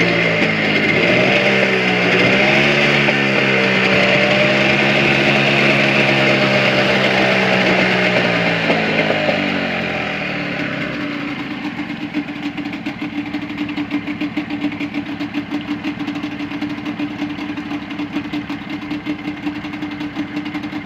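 Motorcycle engine warming up: revved up and down several times, then settling back to a steady idle about ten seconds in.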